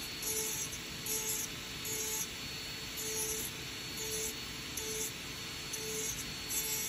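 Dental lab micromotor handpiece with a bur grinding zirconia to cut a milled crown out of its disc: a steady high whine and hiss, with a louder grinding burst about once a second as the bur bites.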